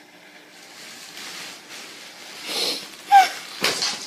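A man's breathy exhales or sniffs, with a short falling voiced sound between them about three seconds in.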